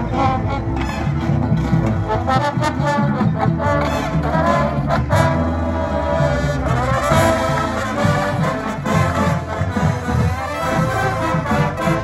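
High school marching band playing its field show: massed brass of trumpets, mellophones, trombones and sousaphones over percussion hits, with rising brass runs about four and seven seconds in.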